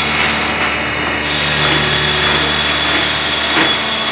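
A milling machine spindle is running with an end mill cutting into a cast metal gearbox housing under flowing coolant. It makes a steady high whine over a low hum, with a few short scratchy cutting noises, and the tone shifts slightly about a second in.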